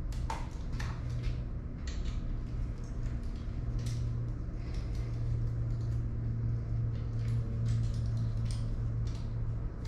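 Scattered light clicks and taps of handling and tightening e-bike parts during assembly, over a steady low hum.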